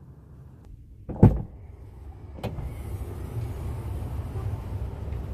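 A single heavy thump about a second in, then a sharper click about a second later. After that comes a steady low outdoor rumble with a faint hiss.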